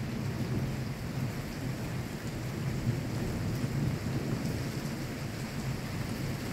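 Thunder rumbling low and long over steady rain, swelling slightly in the middle.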